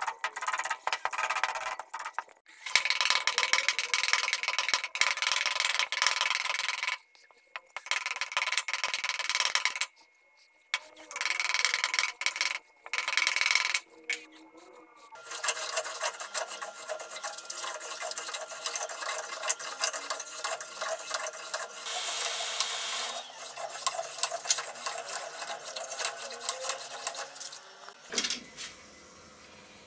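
A blade shaving and scraping a wooden hammer handle blank, in runs of quick strokes broken by short pauses. About halfway through it gives way to a finer, steadier scraping of the wood, which stops near the end.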